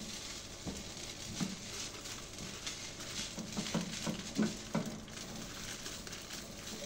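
Food sizzling in a pan, stirred with a spatula that scrapes and knocks against the pan irregularly, about once a second.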